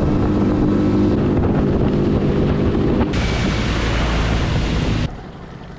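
Outboard motor of a small skiff running at speed, a steady drone with a rushing hiss of wind on the microphone joining about three seconds in. About five seconds in the sound drops sharply to a much lower level.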